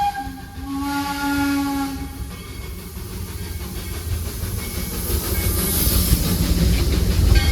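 Narrow-gauge steam locomotive whistle: one blast cuts off right at the start, then a second, lower chord sounds for about two seconds. After it comes steam hiss and a low rumble from the train that grows louder toward the end.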